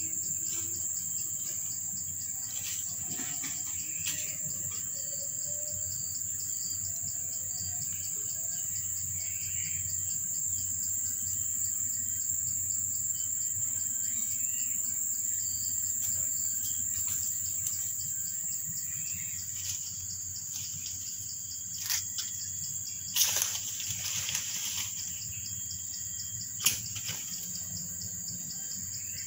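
Insects chirring in a steady high-pitched chorus, with a few short rustles and one sharp click near the end.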